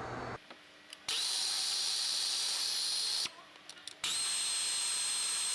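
A power tool runs in two steady bursts of about two seconds each, with a high whine that climbs briefly as each burst starts and then holds.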